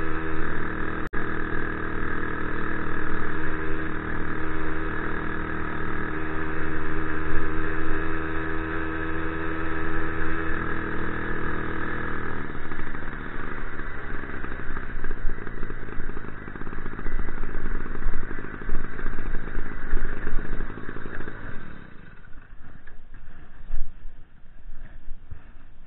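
Motorized bicycle's small engine running at a steady speed while riding. About halfway through, its steady tone gives way to a rougher rattling noise, which quietens a few seconds before the end as the bike comes to a stop.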